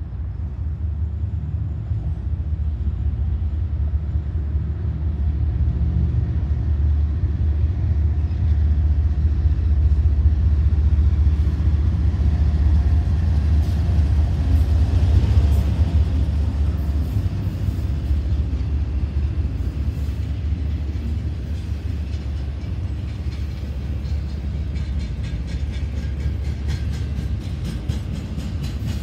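Norfolk Southern diesel freight locomotive passing at the head of a double-stack intermodal train: a deep engine sound that builds to its loudest about halfway through as the locomotive goes by. Then comes the steady roll of the container cars, with regular clicking of wheels over rail joints near the end.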